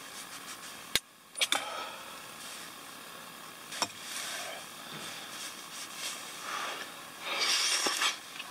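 Metal utensils clicking against an aluminium bowl and pot as hotpot is ladled out and eaten with chopsticks, over the steady hiss of a camping gas stove. A short louder rush of noise comes near the end.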